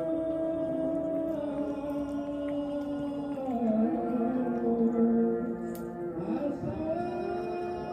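Background music: a slow, chant-like vocal melody of long held notes that slide to a new pitch every second or two.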